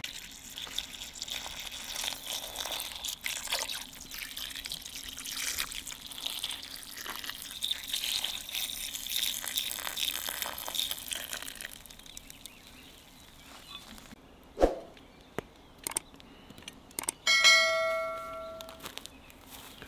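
Red wine poured in a steady stream from a glass jug into an aluminium kazan of meat, onions and tomatoes, splashing and trickling for about twelve seconds. After it stops there are a few sharp knocks, then a short ringing chime near the end.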